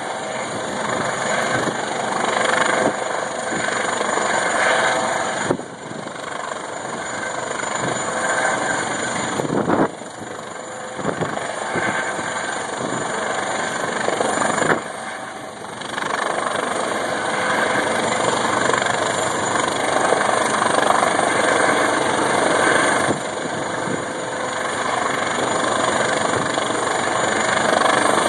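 Helicopter hovering close by: a loud, steady rotor and engine noise that dips briefly a few times.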